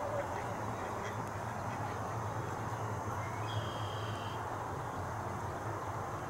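Faint duck calls over a steady background hum, with one brief high, level whistle about three and a half seconds in.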